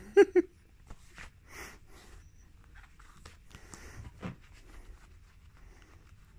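Faint rustling and scratching of a kitten pawing and clawing at a hand on denim jeans, with soft scattered clicks. Two short loud voice sounds at the very start.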